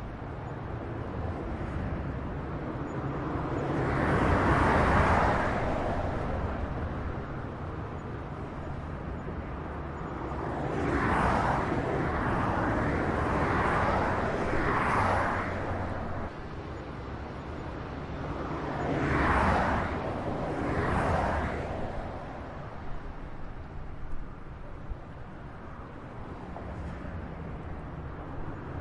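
Highway traffic: a steady hum of tyres and engines, with about six vehicles passing one after another, each swelling up and fading away.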